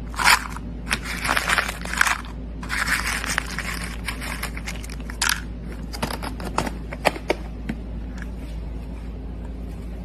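Dry dog kibble scooped and shaken in a clear plastic cup: two stretches of rattling and scraping, then a few single pieces clicking against the plastic about six to seven seconds in.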